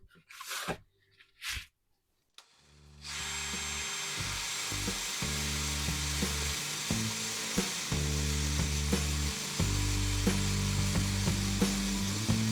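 Electric drill spinning a wire brush against the metal body of a vintage Surform, a steady scratchy whir that starts about three seconds in, over background music.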